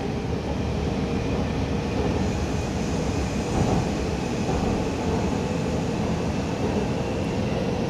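Cabin noise of a Putrajaya Line MRT train pulling away from a station: a steady rumble of wheels and running gear, with faint steady tones over it, heard from inside the car.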